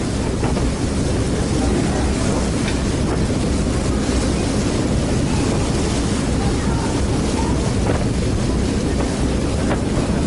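Steady low drone of a passenger ferry under way, engine and hull rumble mixed with water rushing past and wind on the microphone.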